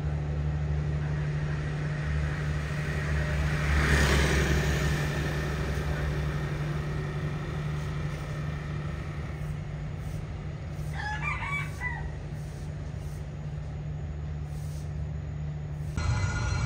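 A steady low engine hum, with a rooster crowing once about eleven seconds in and a louder swell of passing-traffic noise about four seconds in.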